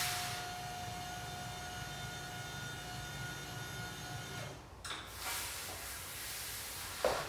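Flexispot EC1B standing desk's electric lift motor running with a steady hum and whine as the desktop lowers, stopping about four and a half seconds in. A light knock and a sharper click follow near the end.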